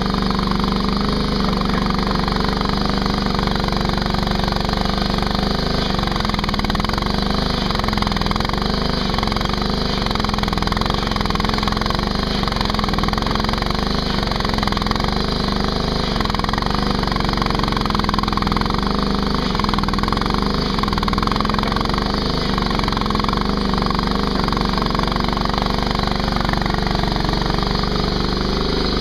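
Mini skid steer engine running steadily at constant speed, with a slight wavering in its tone as the machine works.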